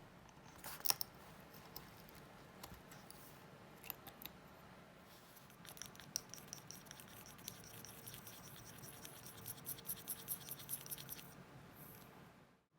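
Faint small clicks from handling a Vostok Amphibia wristwatch, then a quick run of fine ticking clicks lasting several seconds.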